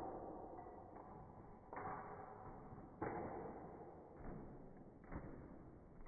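An aluminium-extrusion test fixture and a rubber hex dumbbell toppling onto foam floor mats: the tail of the crash fades, then four dull knocks about a second apart as they settle.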